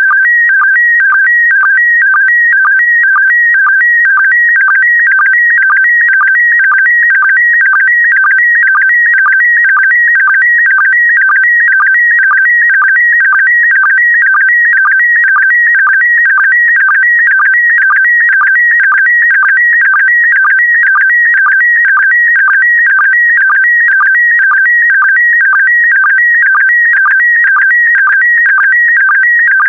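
Slow-scan TV picture signal in PD120 mode: a loud, warbling electronic tone that jumps between two pitches in a steady pattern repeating about twice a second. Each repeat carries a pair of image lines, led by a sync pulse.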